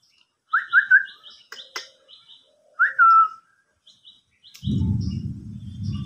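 Parakeet calling: three quick rising chirps about half a second in and a longer rising-then-falling call around three seconds, with a run of faint high chips between. From about four and a half seconds, a parakeet's wings flap in a steady rustling flurry.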